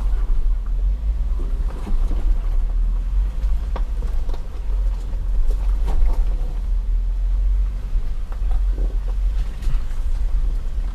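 Off-road vehicle driving slowly over a rough, muddy dirt trail: a steady, loud low rumble of the engine and drivetrain, with a few sharp knocks scattered through it as the vehicle rolls over the uneven ground.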